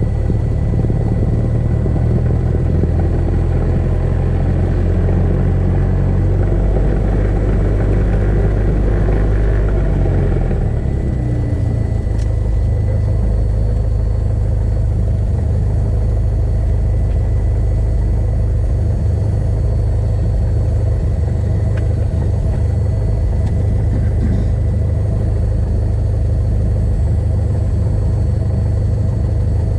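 Cessna Skyhawk's piston engine and propeller running at low power, heard from inside the cockpit as a steady rumble. The engine note drops a little about ten seconds in.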